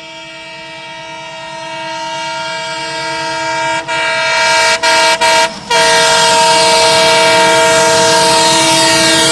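Amritha Express locomotive horn blowing a long chord-like blast as the train approaches at speed to run through the station without stopping. It grows steadily louder and breaks off briefly a few times about four to six seconds in, then is held again. A rising rush of the running train sits underneath.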